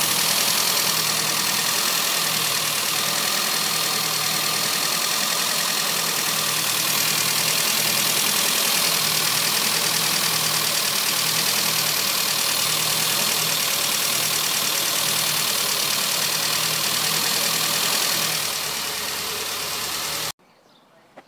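Classic Mini's 998 cc A-series four-cylinder engine idling steadily, recorded close up in the engine bay on its first start-up after ten years of storage. Near the end it drops a little, then cuts off abruptly.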